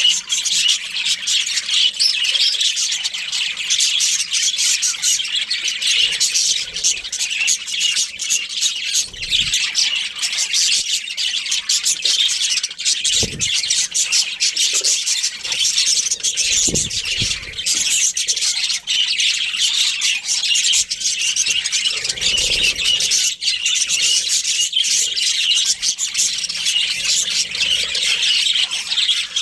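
Budgerigars chirping and squawking in continuous, dense chatter, with a few short low thuds.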